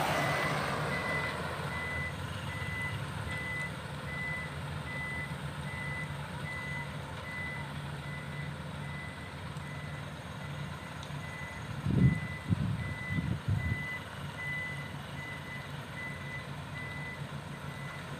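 Dump truck reversing: its back-up alarm beeps steadily at one pitch over the low running of the diesel engine. A few low thumps come about two-thirds of the way through.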